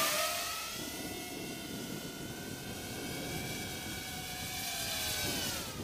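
Eachine Wizard X220S racing quadcopter's brushless motors and propellers whining in flight. The sound fades over the first second, then holds steady, and dips in pitch near the end.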